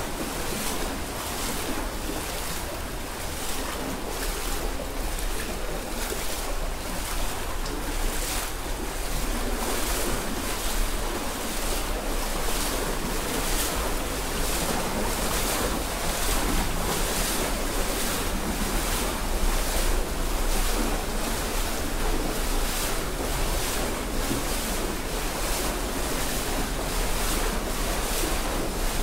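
Shallow stream water rushing over stones in a narrow rock gorge, with a steady run of regular splashes from someone wading barefoot through it. A low rumble of wind on the microphone runs under it.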